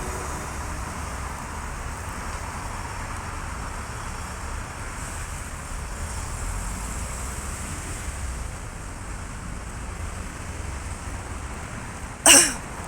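Steady wind and distant traffic noise, broken near the end by one short, loud, sharp sound.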